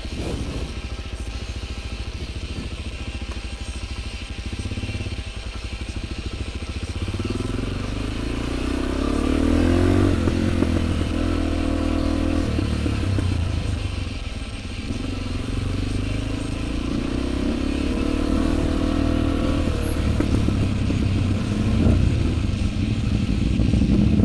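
Suzuki DR-Z400's single-cylinder four-stroke engine running while riding in traffic. Its pitch rises a quarter of the way in as the bike accelerates, holds, drops, then rises again through the second half.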